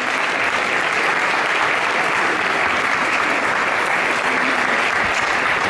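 Applause from a small crowd, a steady dense clapping.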